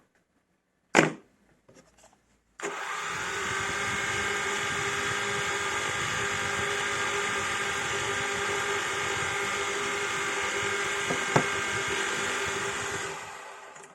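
A knock about a second in, then the electric motors and propellers of a small quadcopter drone start up and whir at a steady pitch, with a high whine over the rush of the rotors, before fading out near the end.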